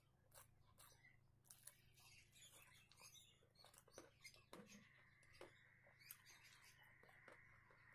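Faint eating sounds: fingers working rice and curry on a plate and chewing, a string of small wet clicks over a low steady hum. A faint steady high tone comes in a little past halfway.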